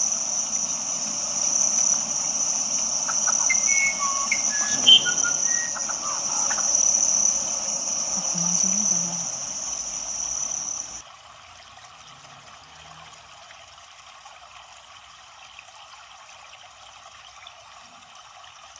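Waterfall rushing steadily under a shrill, even insect drone, with a few short chirps in the first half. About eleven seconds in, the insect drone cuts off suddenly and the level drops, leaving a quieter, steady rush of water.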